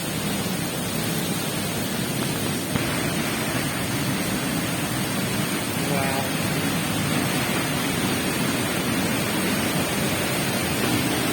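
Steady rush of heavy falling water from a large waterfall, heard up close.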